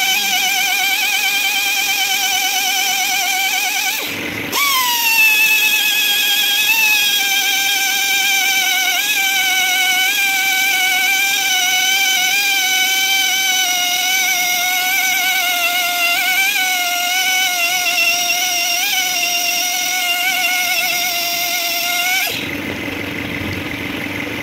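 Die grinder with a ball-shaped grinding stone buffing the rubber sidewall of a tubeless tyre around a cut, preparing it for a repair. It gives a steady high whine that dips slightly each time it is pressed into the rubber. The whine stops about four seconds in, starts again with its pitch falling as the stone bites, and cuts off shortly before the end, leaving a lower hum.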